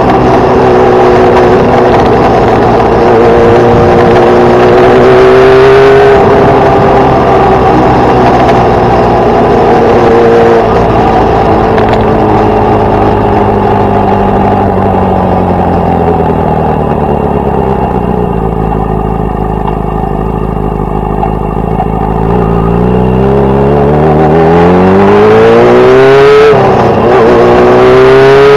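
Yamaha R6's inline-four engine under way: its pitch climbs and holds, falls away to low revs as the bike slows around the middle, then climbs again, with a quick dip and fresh climb near the end that marks an upshift. Wind noise runs underneath.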